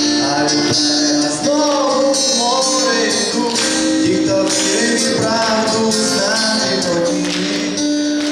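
Live amplified acoustic guitar and keyboard accompaniment with a male voice singing a melody in phrases.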